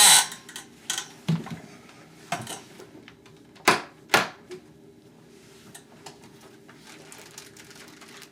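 Scattered clicks and knocks of small objects being handled in a small room, with two sharp knocks about half a second apart roughly halfway through.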